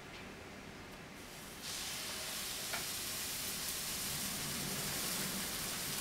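Pancake batter sizzling as it is poured into a hot, oiled frying pan: a steady sizzle that starts about a second and a half in.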